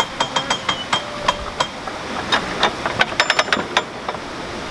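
Canal lock paddle gear's ratchet and pawl clicking steadily, about five clicks a second, as the paddle is wound up with a windlass. After about two seconds the clicking turns irregular, with a few metallic clanks and a brief ringing near the three-second mark.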